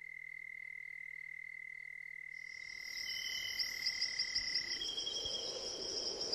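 Multirotor drone's electric motors giving a steady high-pitched whine of several thin tones with a fast flutter. A rushing noise of propeller wash and wind builds up under it from about halfway.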